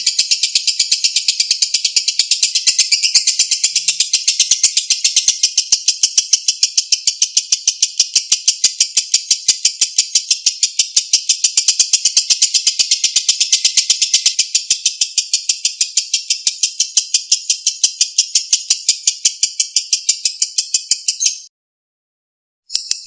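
Lovebird 'ngekek': one long, fast chattering trill of shrill, evenly repeated notes, kept up without a break for about twenty seconds. It stops abruptly and starts again after a short pause near the end.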